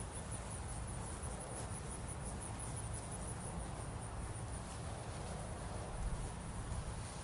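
Insects chirping steadily in a fast, even high-pitched pulse over a low continuous rumble.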